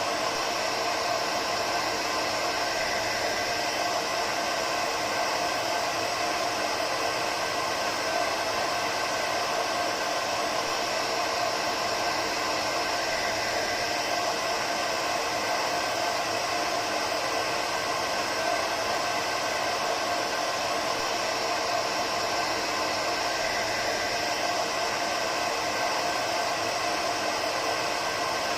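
Hair dryer running steadily, a constant whooshing rush of air with a faint motor hum and no change in speed.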